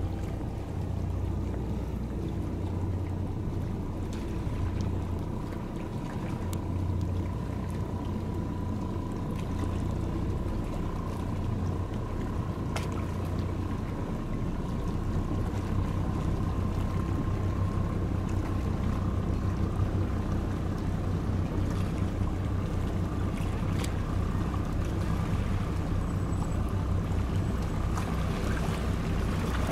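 High-speed passenger ferry's engines running with a steady low drone and a thin steady whine above it that fades out about two-thirds of the way through.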